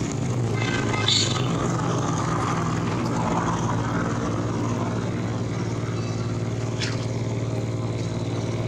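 A steady engine drone with a low hum. A brief high-pitched sound about a second in and a short thin chirp near the end.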